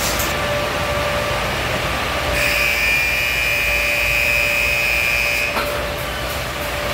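Belanger/MacNeil car wash tunnel equipment running: water spraying and cloth wrap brushes turning, over a steady motor hum. A high whine comes in about two and a half seconds in and cuts off about three seconds later.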